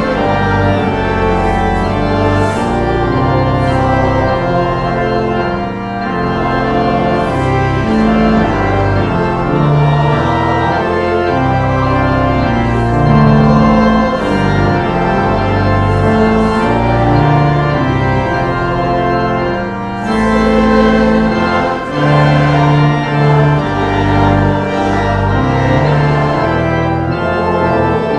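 Church organ music: slow, sustained chords over a moving bass line, with the notes changing every second or two.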